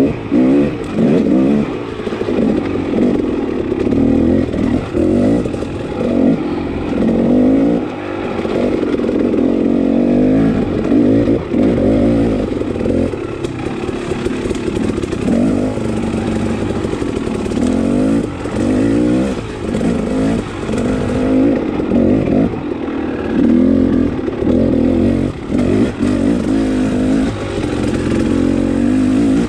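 KTM dirt bike engine revving up and down under load as the bike climbs a rocky trail, its pitch rising and falling every second or so with the throttle.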